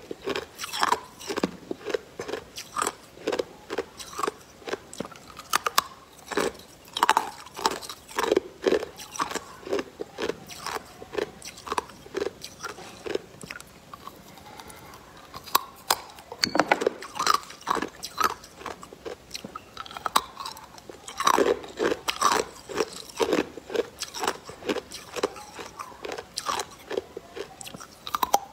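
Clear ice pop on a wooden stick being bitten and crunched between the teeth in quick, sharp bites, with a lull of a few seconds about halfway through.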